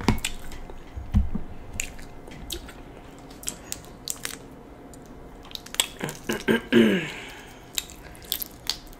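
Close-miked eating of a seafood boil: chewing and wet squishing of shellfish dripping with butter sauce, with many scattered sharp clicks and snaps from handling the food. A brief falling vocal sound comes about six and a half seconds in.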